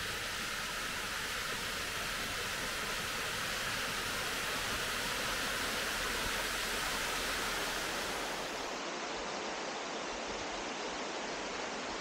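Fast-flowing mountain stream rushing over rocks, a steady hiss of water; its tone turns a little duller about nine seconds in.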